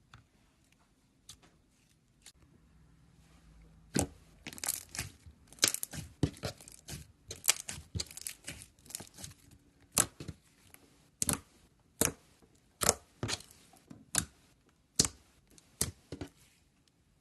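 Slime being squeezed and stretched by hand, with faint clicks at first, then from about four seconds in a run of sharp crackles and pops as trapped air bubbles burst, thinning to single pops near the end.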